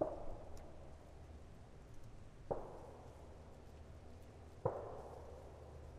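Three distant gunshots, each a sharp crack with a short echoing tail, about two seconds apart, over a low steady rumble.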